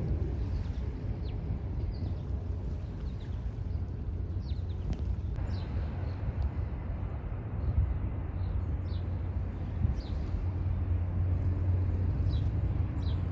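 Low steady rumble of distant jet airliners at the airport, a little louder in the last few seconds. Short, high, falling bird chirps repeat over it every second or so.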